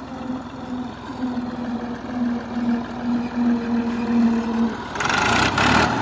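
Tractor engine running steadily with a pulsing hum. About five seconds in, the hum drops away and a loud rushing noise takes over for about a second.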